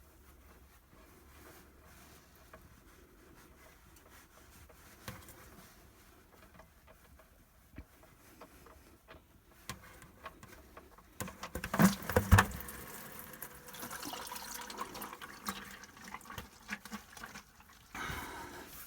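Dark engine oil from a Cummins 6.7 turbo-diesel pouring in a steady stream out of the oil-pan drain hole into a drain pan, with the drain plug just removed by hand. It is preceded by a few loud knocks about twelve seconds in as the plug and pan are handled.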